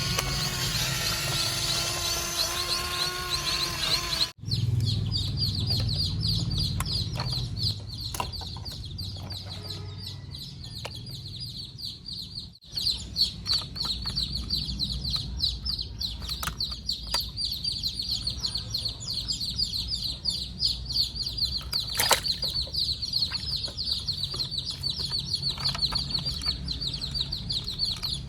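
Music for about the first four seconds, cut off abruptly. Then comes continuous rapid high-pitched chirping over a low rumble, with a short break about twelve seconds in.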